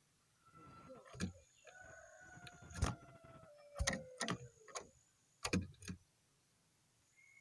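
A rooster crows once: a long call of about three seconds that falls slowly in pitch. A series of sharp knocks and taps runs through it, the loudest heard three times around the middle.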